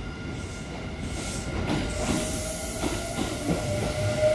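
Kintetsu electric train running alongside the platform: a low rumble of wheels on rail with scattered knocks, under a steady high whine. It grows louder in the second half as the cars come past.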